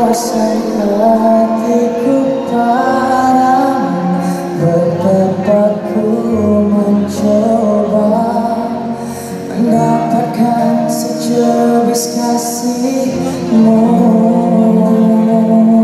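Live pop song: a male singer singing a slow melody over band accompaniment through the arena's sound system, recorded from among the audience.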